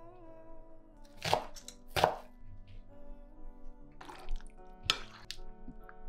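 A metal fork stirring sliced zucchini in a wet batter in a glass bowl: four short, sharp scrapes and clinks, over background music with steady held notes.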